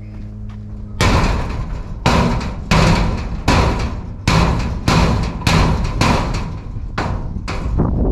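A lump hammer strikes the corrugated steel wall of a shipping container about ten times, roughly one to two blows a second, starting about a second in. Each blow clangs with a short metallic ring. The blows are knocking loose a door-sized panel cut out of the container wall.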